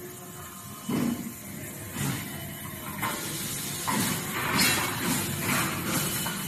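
Metal frame parts being handled: a dull knock about a second in, then a run of scrapes, rustles and light knocks as a grey steel bar is picked up and moved into place.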